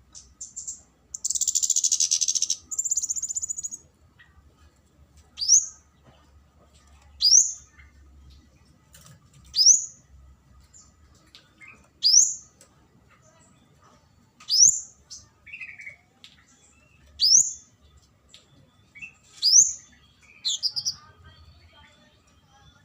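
Kemade flowerpecker calling: a loud, rapid, high chattering trill for about three seconds, then single sharp, very high 'tsit' notes, one every two seconds or so.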